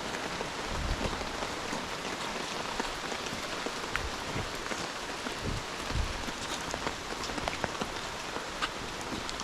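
Steady rain falling on rainforest foliage: an even hiss dotted with the ticks of single drops, with a few low thuds in the middle.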